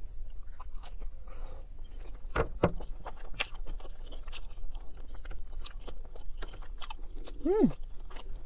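Close-up mouth sounds of a person chewing a bite of breaded vegan chicken in gravy: wet smacks and clicks throughout, with fork clicks against a plastic takeout tray. Near the end a short hum falls in pitch.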